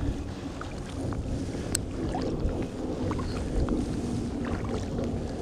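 Kayak paddle strokes in the water, with small splashes and drips off the blades, over a steady low rumble.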